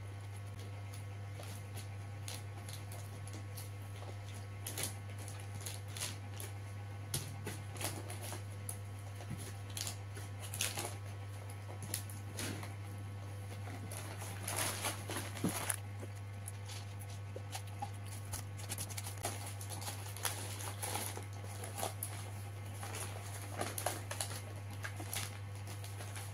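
Hand-eating from a paper-wrapped rice packet: scattered crinkles and rustles of the wrapping paper and wet chewing clicks, busiest about halfway through, over a steady low hum.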